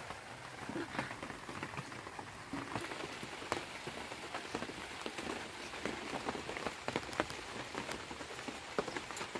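Green chillies being sliced against a bonti's fixed blade: irregular crisp little cutting clicks, a few sharper ones among many faint ones, over a low hiss.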